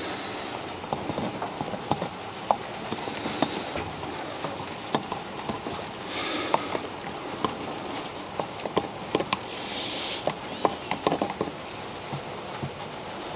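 Scattered light clicks and taps of a small plastic lube bottle's nozzle against the aluminium camshaft bearing saddles of a BMW M20 cylinder head as engine assembly lube is dabbed on. Two brief rustling hisses come about six and ten seconds in.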